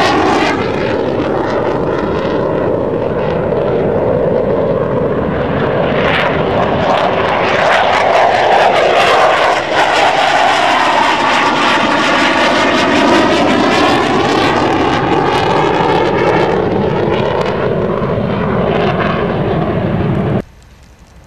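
F-15 Eagle's twin jet engines heard as a loud, continuous roar as the fighter flies past, with a swirling, phasing tone that sweeps up and down as its distance changes. It cuts off suddenly near the end.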